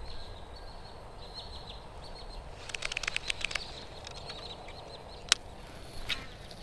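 Baitcasting rod and reel being worked during a retrieve and a recast: a quick run of sharp clicks about three seconds in, a single sharp click near the end, then a short rasp as the rod is swung into the cast. Faint high bird chirps sound behind it.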